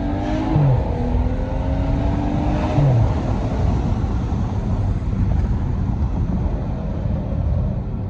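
BMW 335i's N55 turbocharged straight-six with a straight-piped Akrapovic exhaust pulling hard through the gears. The revs climb, drop at a gear change about half a second in, climb again to a second shift near three seconds, then settle into a steady rumble.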